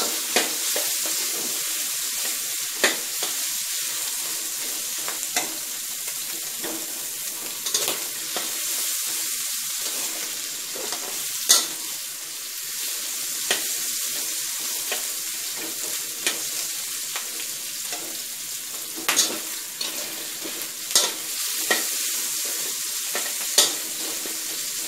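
Pork belly sizzling steadily in its rendered fat in a wok over low heat, while a metal spatula scrapes the pieces around the pan, with a sharp clink against the wok every couple of seconds.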